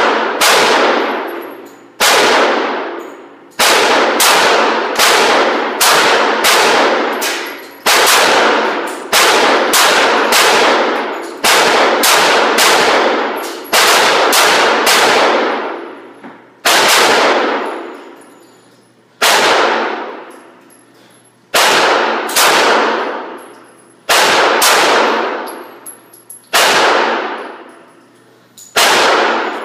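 Springfield XD 9mm pistol fired repeatedly, more than twenty shots in quick strings about half a second apart with short pauses between, each shot ringing out with a long echo in the enclosed range.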